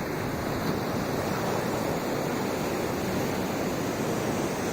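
High-tide ocean surf rushing and washing in over the beach, a steady wash of breaking waves and foam.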